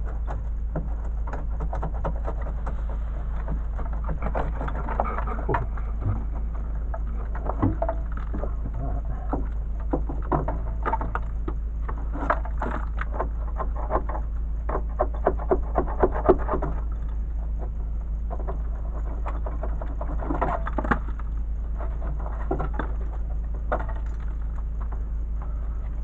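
Scattered scraping, rustling and knocking from someone working in a dirt-floored crawlspace under a house, over a steady low hum. Just past the middle comes a quick run of about five sharper knocks.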